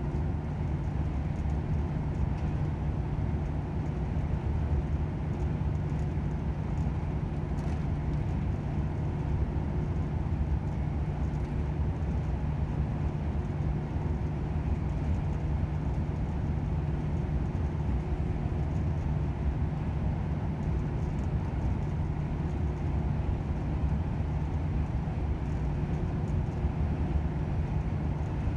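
Volvo FH 500 truck driving at a steady speed: its 13-litre six-cylinder diesel runs with an even, unchanging drone over tyre and road noise.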